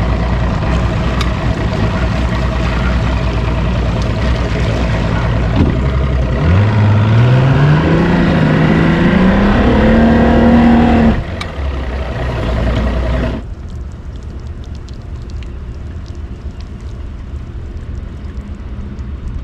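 Bass boat's outboard motor running over rushing wind and water. About six seconds in, the engine is throttled up, its pitch climbing steadily for about four seconds. The sound then drops abruptly, and after a second drop it settles to a quieter, steady rumble.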